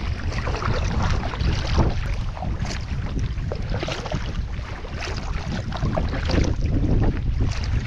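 Double-bladed kayak paddle dipping into choppy water on alternating sides, a splash every second or so, under steady wind buffeting the microphone.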